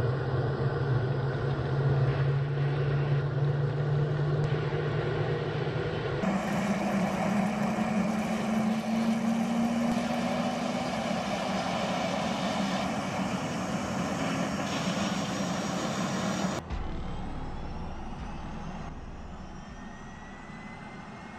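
Turbofan jet engine running: a steady noise over a low hum whose pitch steps up about six seconds in. A few seconds before the end it drops in level and a faint high whine rises.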